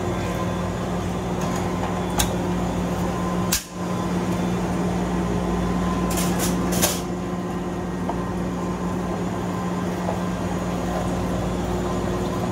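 Steady hum of kitchen refrigeration machinery with a strong low tone. A few sharp clicks and knocks of metal trays and molds being handled come about two seconds in and again around six to seven seconds in, and the sound cuts out briefly about three and a half seconds in.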